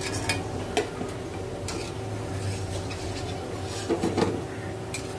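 Steel slotted skimmer clinking and scraping against an iron kadhai as fried gulab jamuns are scooped out of the oil: a few sharp clinks, with a cluster of louder knocks about four seconds in. A steady low hum runs underneath.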